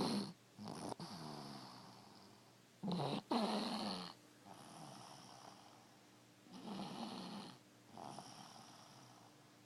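Loud snoring from a deep sleeper: a run of separate snoring breaths every few seconds, the loudest about three seconds in.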